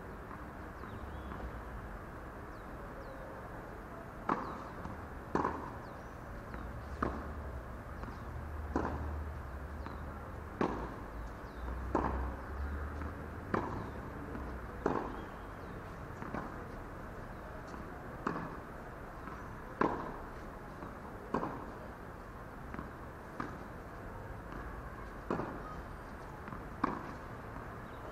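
Tennis ball struck back and forth by rackets in a rally on a hard court: a string of sharp pops of ball on strings and court, about one every one and a half seconds, beginning a few seconds in.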